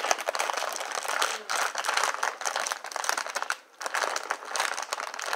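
Lay's potato chip bag crinkling and rustling as hands pull and twist at it, struggling to get it open, with a short pause about two thirds of the way through.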